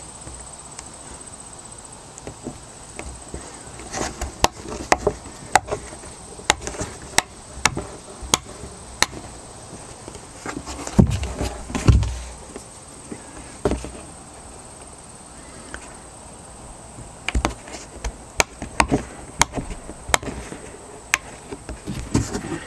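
Hands working on a hard plastic EarthBox planter, pressing rubber grommets into its drilled holes: a string of sharp plastic clicks and knocks, with two heavier thumps about halfway through as the box is shifted.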